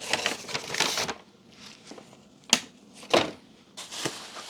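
Rustling of packaging for about a second, then a sharp click and a couple of dull knocks as parts from the box are handled and set down.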